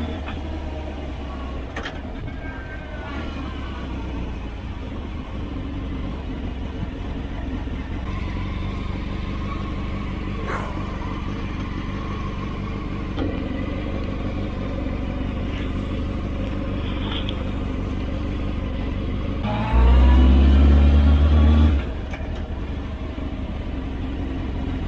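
Motorcycle engine running at low revs, then revved hard for about two seconds near the end, its pitch climbing, before dropping back to a steady run.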